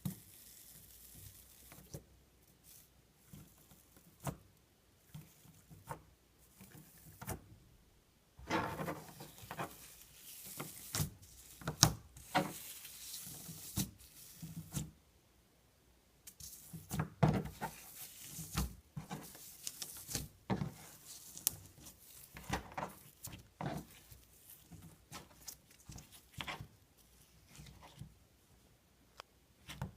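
Hands handling a plastic slime container and clear slime: irregular clicks, taps and soft rustling, busiest in the middle.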